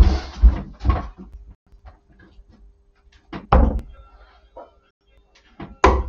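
A few knocks and thuds: a cluster of knocks over the first second and a half, then a sharp knock about three and a half seconds in and another near the end, over a faint steady hum.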